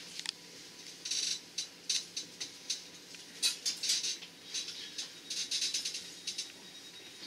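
Irregular rattling and crackling inside a moving regional electric train carriage, in quick clusters that come and go, over a faint steady hum.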